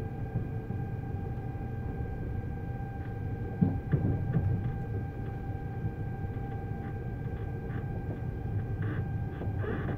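Siemens Velaro E320 (Eurostar Class 374) high-speed train on the 1,500 V DC supply: the IGBT traction inverter whines in several steady tones over a low running rumble. A sharp knock comes about three and a half seconds in, with short clicks and rattles near the end.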